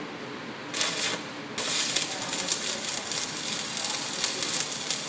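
Stick (arc) welding: the electrode strikes with a brief burst of crackle just under a second in, then the arc catches about a second and a half in and burns with a steady, dense crackling sizzle.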